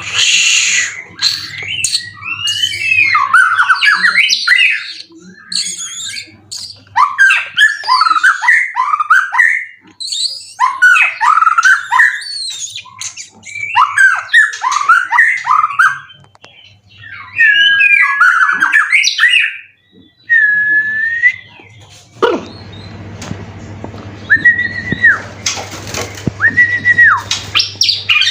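White-rumped shama (murai batu) singing loudly in quick, varied bursts of whistles and trills with short gaps between phrases. Near the end it gives two long, clear held whistles over a steady background hiss.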